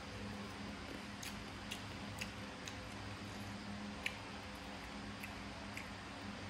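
Eating sounds of a person taking papaya salad by hand and chewing: a handful of small, irregular wet clicks and smacks, the sharpest about four seconds in, over a steady low hum.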